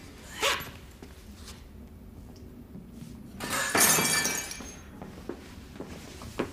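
Glass breaking: a crash with ringing shards a little past the middle, the loudest sound, after a shorter sharp crack about half a second in.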